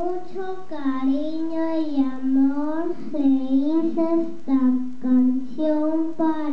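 A young girl singing solo into a handheld microphone, holding each note for about half a second to a second with short breaks between phrases.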